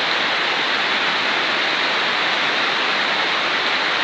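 Torrential rain pouring down and floodwater rushing along the street, a loud, steady, even hiss.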